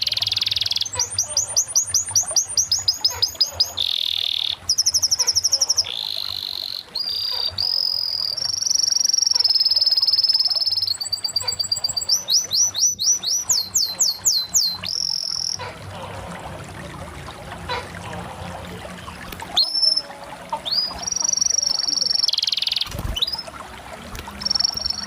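Domestic canary singing a long, high-pitched song: runs of fast repeated notes alternate with held whistled notes, the phrase changing every second or two, with a short quieter pause about midway.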